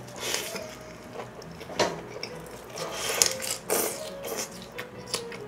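Close-miked chewing of a big mouthful of lettuce wrap with rice and spicy chicken: irregular crunching of the lettuce leaves with wet smacking mouth sounds.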